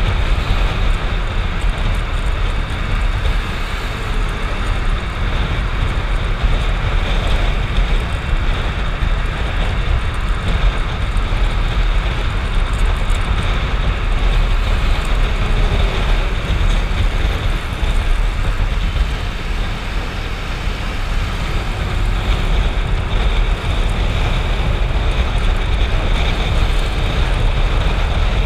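Motorcycle ridden at speed: steady wind rush over the microphone with the engine running underneath, its faint tone rising and falling a little as the throttle changes.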